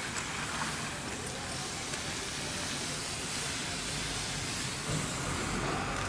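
Fire hose jet spraying water onto wet asphalt, a steady hiss and splash. A low engine rumble joins about five seconds in.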